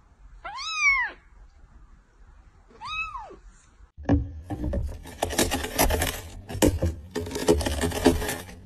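A kitten meows twice, each meow rising and then falling in pitch; the first is the louder. About four seconds in, dense scraping and crackling takes over as a cat works its mouth on the edge of a cardboard box.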